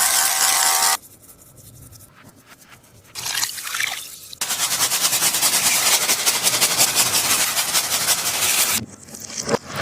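Taba squishy being squeezed and squished: dense, wet-sounding crackling and sticky squelching that comes in stretches. It falls quiet about a second in, returns briefly, then crackles steadily from about four seconds until near the end.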